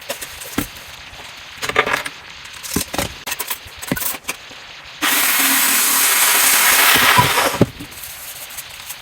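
Plastic sink-drain fittings clicking and knocking as they are handled and fitted together. About five seconds in, a steady hiss starts, and it stops about two and a half seconds later.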